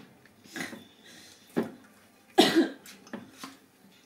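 Several short coughs, the loudest about two and a half seconds in, with light handling sounds at a glass mixing bowl of dough.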